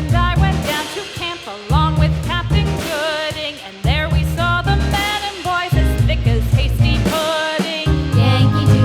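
Background music: a song with a singing voice over a steady bass and drum beat.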